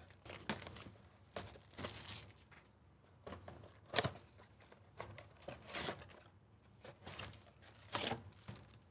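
Plastic shrink wrap being torn and crinkled off a trading-card blaster box in a series of short crackling rips. Near the end the cardboard box flap is pulled open.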